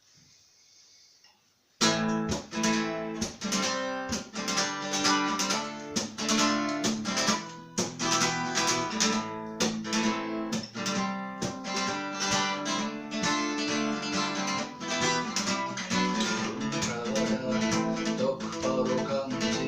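Acoustic guitar strummed in a steady rhythm, starting abruptly about two seconds in after a brief quiet.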